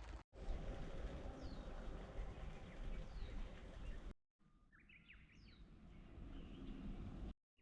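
Birds chirping in short calls over a low steady background hiss, broken by two abrupt silent cuts; the bird calls are clearest in the quieter second half.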